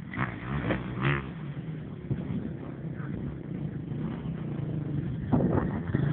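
Motorcycle engine running steadily; about five seconds in, a louder dirt-bike engine cuts in abruptly, its rapid firing pulses clearly heard.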